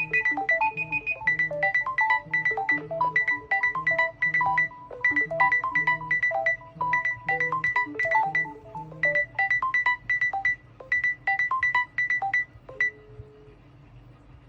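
Smartphone ringtone melody of short plucked notes over a steadily repeating high note, looping, then cutting off about 13 seconds in.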